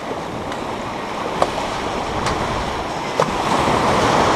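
Shallow ocean surf washing and foaming around the legs, swelling to a louder rush as a wave breaks about three and a half seconds in. A few brief sharp clicks sound through it.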